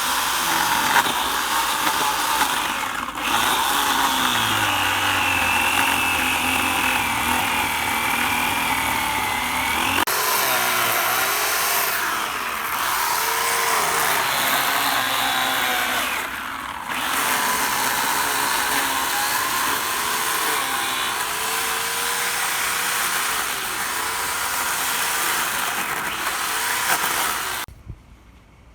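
Handheld electric power tool running under load, its motor pitch sagging and rising as it bites. It briefly eases off three times and cuts off shortly before the end.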